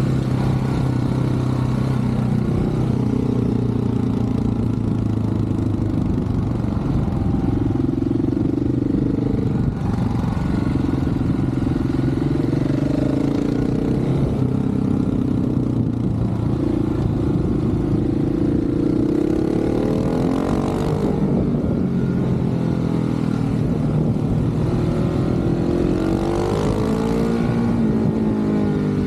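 Motorcycle engine running under way, its pitch holding steady for a few seconds at a time and then shifting up and down as the throttle and gears change. It dips briefly about ten seconds in.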